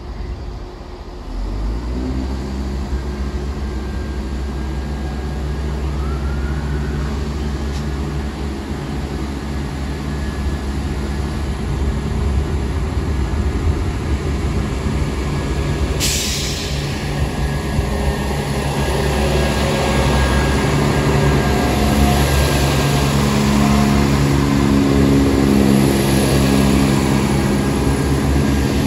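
Class 168 Clubman diesel multiple unit pulling away under power, its diesel engines throttling up about a second and a half in and growing louder as the train approaches and runs past. A sudden sharp hiss comes about halfway through.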